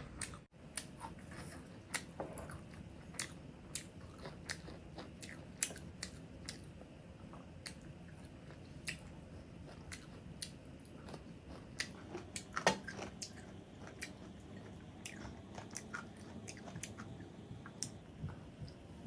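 Close-up eating sounds of black bean noodles and smoked sausages: chewing with frequent short, sharp wet clicks and smacks, about one or two a second, a little louder about two-thirds of the way through.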